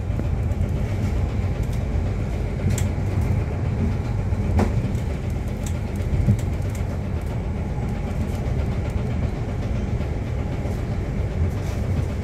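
Inside an Alexander Dennis Enviro400H hybrid double-decker bus while it runs: a steady low rumble, with a few short rattles and knocks from the body.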